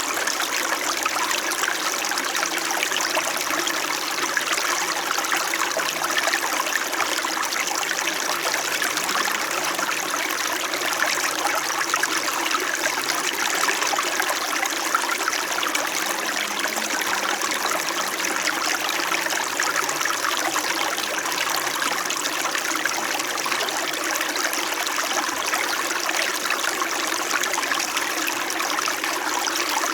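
Small mountain stream flowing over rocks: a steady, unbroken babbling and trickling of water.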